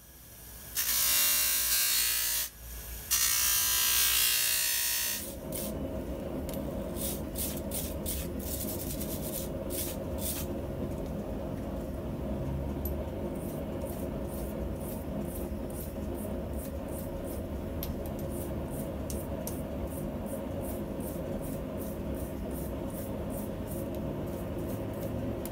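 Steel punch held against a spinning abrasive wheel on a bench grinder: a loud grinding hiss for about five seconds, dipping briefly midway. After that, a steadier, quieter hum with scattered light scratchy ticks.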